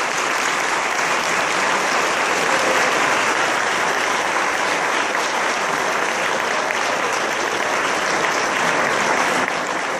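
Audience applauding steadily in a lecture room after a talk, a dense, even clapping without a break.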